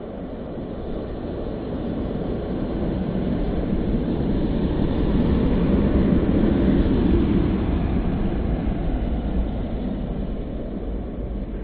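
A low rumble that builds gradually to a peak about six to seven seconds in and then fades away, the pattern of a vehicle passing by.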